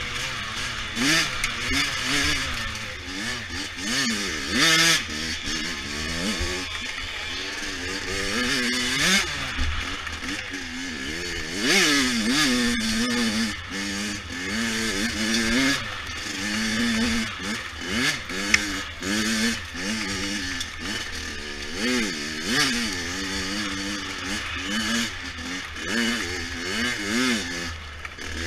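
A 100 cc dirt bike engine being ridden hard, its pitch rising and falling over and over with each twist of the throttle and change of gear.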